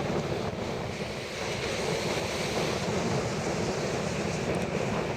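Sea waves washing onto the shore, with gusty wind buffeting the microphone.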